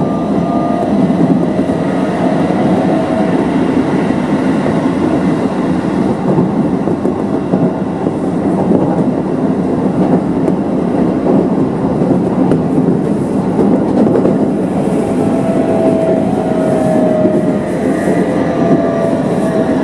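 Keisei Electric Railway train running along the line, heard from inside the passenger car: a steady rumble of wheels on track, with a faint whine that comes and goes about three-quarters of the way through.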